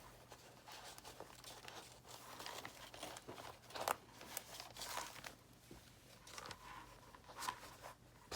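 Soft, irregular rustling of paper as a needle and thread are worked through the middle hole of a paper signature, with a faint electrical hum underneath.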